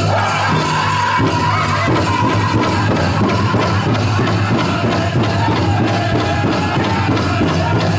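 Powwow drum group singing a contest song, voices together over a steady, even beat on a large drum.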